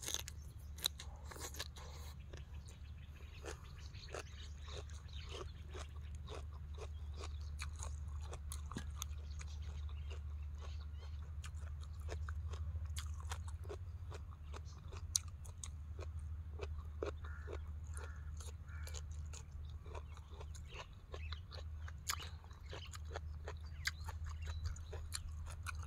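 A person chewing and crunching mouthfuls of spicy Thai papaya salad with rice noodles and boiled vegetables, many small irregular crunches and mouth clicks, over a steady low hum.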